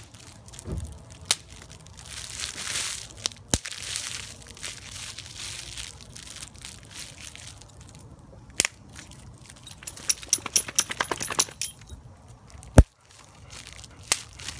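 Bubble wrap being handled and crinkled, with sharp single pops every few seconds. A quick run of pops comes a little past the middle, and the loudest single pop comes near the end.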